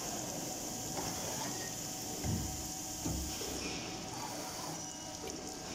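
CNC circular saw machine for metal tube running, with a steady high hiss that drops away a little after halfway and a couple of low mechanical clunks partway through.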